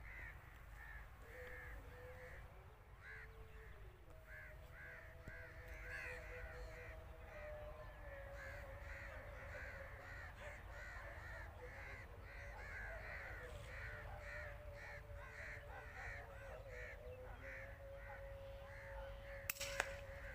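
Crows cawing over and over, several calls a second, with a faint drawn-out wavering tone beneath them. Two sharp clicks come close together near the end.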